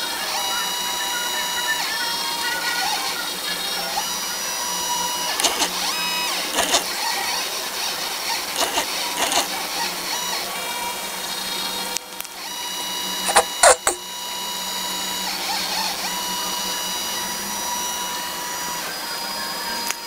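Stepper motors of an Arduino CNC plotter whining as the axes move, the pitch jumping to new steady notes every second or two as the moves change. A few sharp clicks come in the middle and again about two-thirds of the way through.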